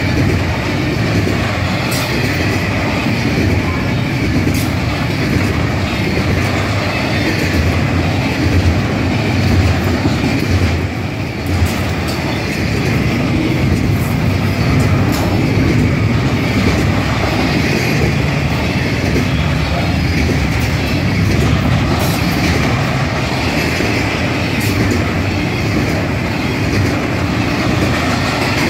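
Double-stack container freight train passing close by: a steady, loud rumble of well-car wheels running on the rails, with occasional sharp clicks.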